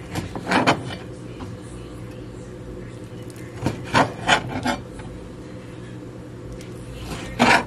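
Chef's knife slicing raw chicken breast on a cutting board: short scraping strokes as the blade cuts through the meat and drags across the board, in three bursts, about a second in, around four seconds in, and near the end.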